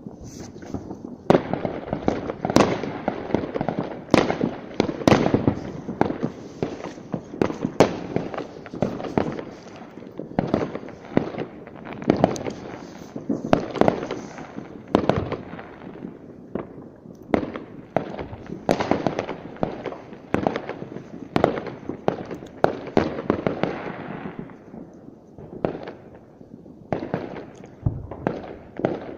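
Fireworks going off in quick succession: many sharp, overlapping bangs with crackle in between, thinning briefly near the end before more bangs. Heard through a smartphone's microphone.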